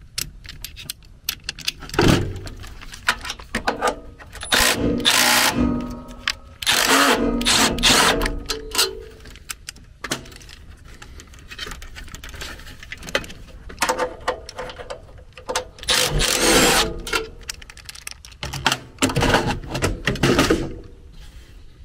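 Cordless drill/driver with a 5/16 nut-setter bit running in several short bursts as it drives out sheet-metal screws from a furnace blower housing, with clicks and rattles of the tool and panel between runs.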